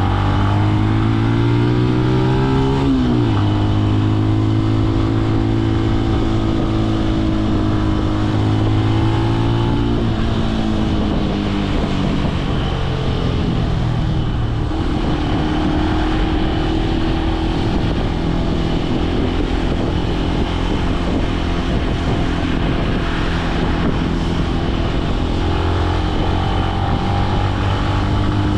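Benelli BN125's single-cylinder four-stroke engine under way, revving up and dropping sharply at a gear change about three seconds in. It then pulls steadily, eases off around ten to fifteen seconds in, and cruises at a steady, lower note.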